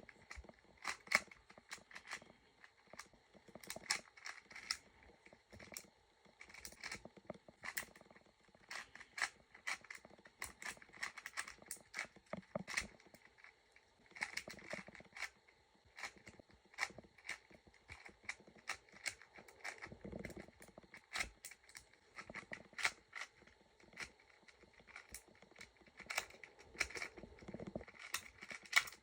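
Plastic 4x4 speed cube being turned with one hand: quick, irregular runs of clicks and light scrapes as the layers turn, with short pauses between runs.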